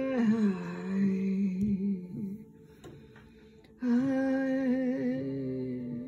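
A woman's voice humming wordless chant tones in long held notes. The first note drops lower in pitch and ends about two seconds in; after a short pause a second, steady note starts near four seconds in.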